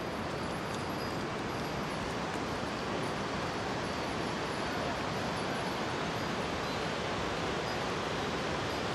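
Steady rushing roar of a fast mountain river tumbling over rocks below.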